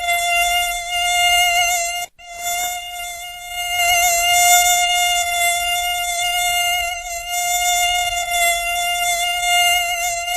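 Mosquito in flight, a steady high-pitched buzzing whine with many overtones and a slight waver. It cuts out abruptly for a moment about two seconds in.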